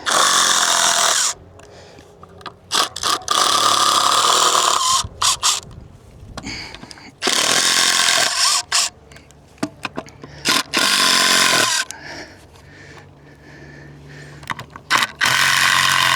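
Power drill running in about five short bursts of one to two seconds each, backing the screws out to take boards off a fence.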